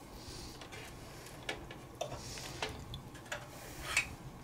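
Scattered light clicks and taps, about six in four seconds, from hands handling an Asus PCE-AX58BT Wi-Fi card and its connector cable, over a faint low hum.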